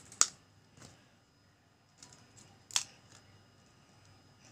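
A hen's egg being tapped to crack its shell: a sharp tap just after the start and another about two and a half seconds later, with a few lighter clicks between.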